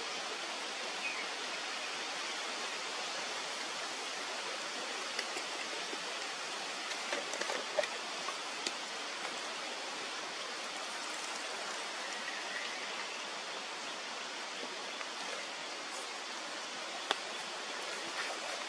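Steady rushing noise with a few faint clicks and taps here and there.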